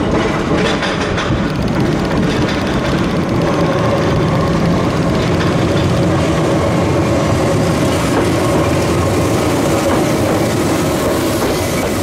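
Keihan 600 series two-car electric train passing close by on street-level track, its wheels clicking over the rails in the first second or so, then a steady running drone as it goes by.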